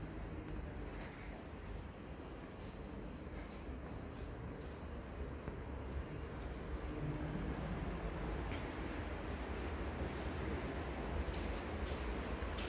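An insect chirping steadily, a regular series of short high-pitched chirps a few times a second, over a low rumble of handling and footstep noise.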